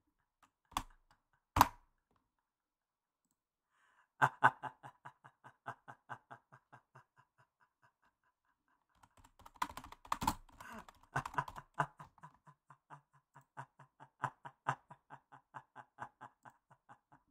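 A man laughing hard in a long run of short, evenly spaced 'ha' pulses, about four a second, starting about four seconds in and broken by a brief pause midway. Two sharp clicks come before the laughter, about a second in.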